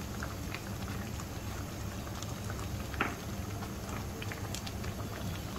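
Thick, grainy milk with sugar reducing in a wok, bubbling and sputtering with scattered short pops, one louder about three seconds in. A steady low hum runs underneath.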